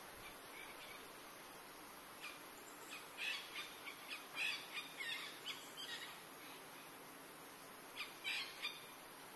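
Birds chirping in quick runs of short calls, a cluster a few seconds in and a brief second one near the end, over a steady high-pitched hiss of jungle insects.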